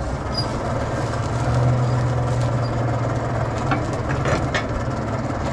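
Forge blower running with a steady hum, blowing the forge fire up to a slow welding heat. A few light taps come about four seconds in.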